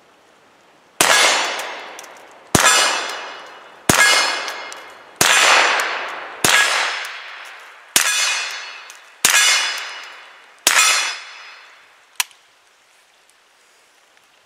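Eight shots from a Mossberg Blaze .22 LR rifle, fired about one and a half seconds apart, each hitting a steel target that rings out and fades over about a second. A single sharp click follows about twelve seconds in.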